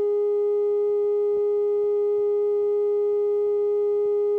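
Steady, unwavering single-pitch test tone: the line-up tone recorded with a broadcast tape slate ahead of a TV promo spot.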